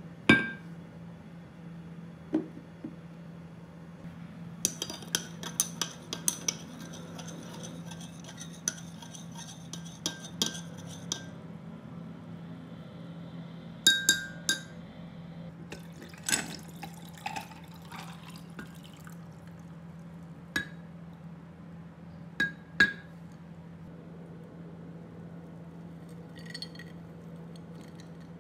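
Glass on glass: a glass straw stirring in a glass measuring jug, clinking against its sides in a quick run of light taps for several seconds, then in scattered single clinks. It opens with one sharp clink as liquid is poured into the jug.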